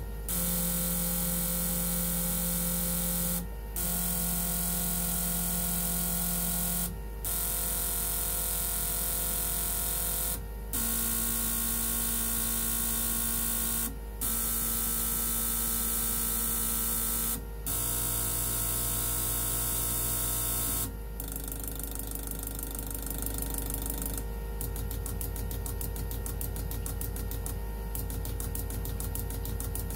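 Arctic Cat ZR 600 fuel injectors being pulsed on an injector test bench: a steady electric buzz over a hiss, its pitch stepping to a new setting about every three and a half seconds with a brief break between steps. From about 21 seconds in it changes to a fast, even clicking.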